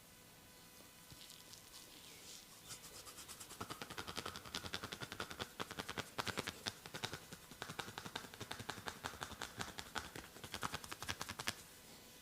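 Massage percussion: hands striking the body in a rapid run of slaps or taps, about seven a second. It starts softly, grows louder a few seconds in, and stops near the end.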